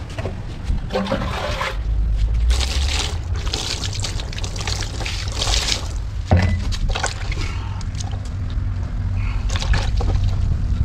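Water pouring and splashing, with scattered clicks and one sharp knock about six seconds in, over a steady low rumble.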